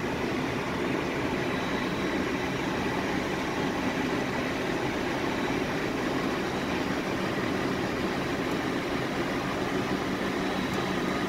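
Steady flight-deck noise of a DC-9-14 in its climb just after takeoff: the even rush of airflow and of the rear-mounted Pratt & Whitney JT8D turbofans at climb power, with faint steady high whine tones on top.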